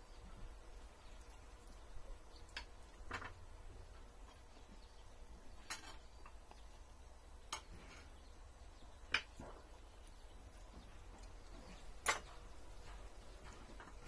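Spoons and forks clinking against ceramic plates while eating: about six short sharp clinks spaced a second or more apart, the two loudest in the second half, over a low steady hum.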